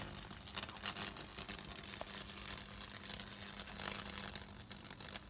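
High-voltage arc from a microwave oven transformer crackling and sizzling as it burns its way across a wet wooden board, over a steady low electrical hum.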